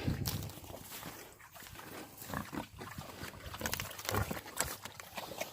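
Livestock moving about in snow: irregular short crunches, knocks and low thuds from hooves and bodies, with no steady tone.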